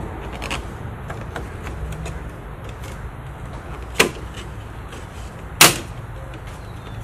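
Two sharp plastic snaps about a second and a half apart, the second louder, as the retaining hooks of a BMW E90 kidney grille give way when it is pushed out from behind.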